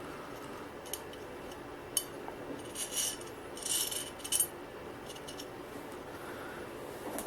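Light, scattered clicks and clinks of small metal parts: a nut being handled and fitted onto the back of a clamp arm's metal bar. A sharper click comes near the end.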